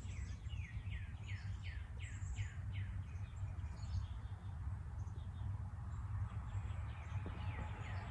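A songbird calling a quick series of downward-sliding chirps, about three a second, that fades after the first few seconds, over a steady low background hum.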